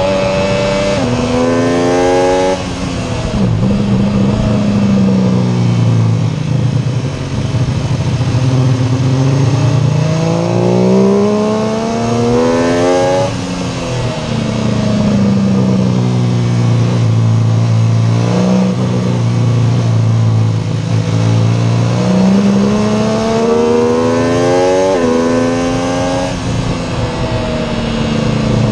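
MV Agusta F3 675's three-cylinder engine at full throttle on track, revs climbing in steps with a short drop at each upshift, then winding down on the brakes into corners, several times over. Wind rush on the onboard microphone runs under it.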